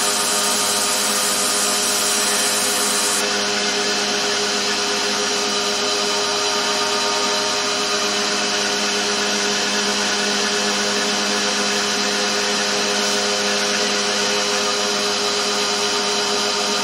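Belt grinder running steadily: its motor and moving abrasive belt give an even hum with a whine and hiss on top, unchanged in level throughout.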